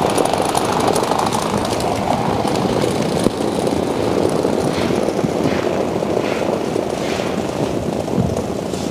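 Steady low rushing noise, with a short run of soft crunches about halfway through.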